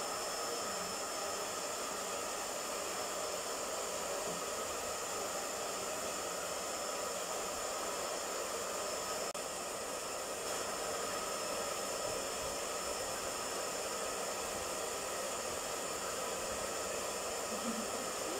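Hair dryer running steadily, blowing a constant airy hiss with a faint high whine, drying a freshly bathed puppy's coat.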